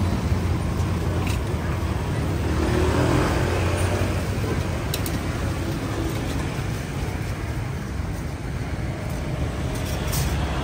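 Steady rumble of street traffic, with a passing engine rising and falling in pitch a few seconds in and a few brief clicks.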